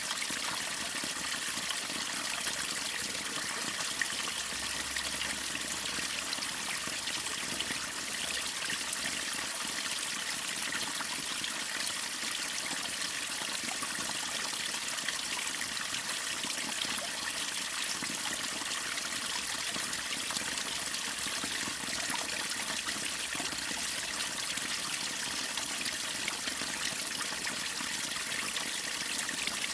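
Waterfall and stream water running, a steady, even rush that does not change.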